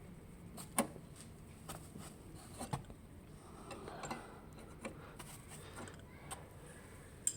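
Scattered sharp clicks and light knocks of hand work on parts, about seven over a few seconds, the loudest about a second in and near the end.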